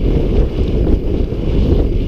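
Wind buffeting a helmet-mounted camera's microphone as a mountain bike descends a dirt trail at speed, with the rumble of the tyres over the ground.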